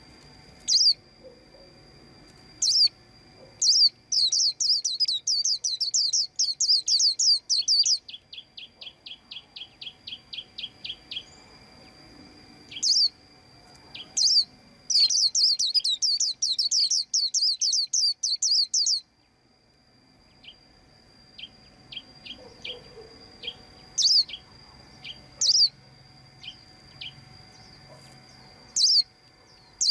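White-eye chirping. Single sharp high call notes are scattered through, with two long rapid chattering trills of about four seconds each, starting about four and fifteen seconds in, and a run of softer, lower, evenly spaced ticks after the first trill. A faint steady high tone lies underneath.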